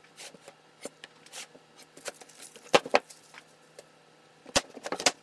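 Wooden boards being handled on a shop table: hands sliding over them and the boards knocking against each other and the tabletop. Light rubbing and clicks, with two sharp knocks about three seconds in and a cluster of knocks near the end.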